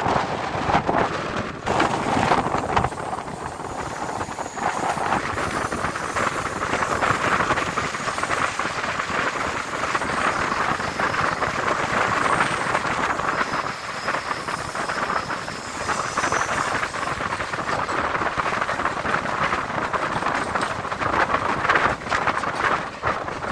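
Coromandel Express passenger coaches running at speed, heard from an open coach doorway: a steady rush of wheel-on-rail noise and wind, with a faint high-pitched squeal now and then as the train rounds a curve.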